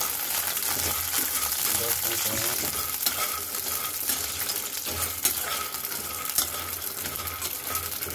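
Moong dal badi sizzling as they are lightly fried in hot oil in a metal kadhai. A metal spoon stirs them, scraping and clicking against the pan.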